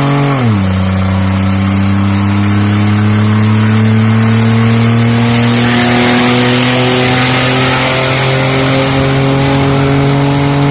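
Car engine at full throttle in a roll race. It shifts up about half a second in, with a sudden drop in pitch, then pulls hard with the pitch rising slowly and steadily. A rush of wind noise grows from about halfway through.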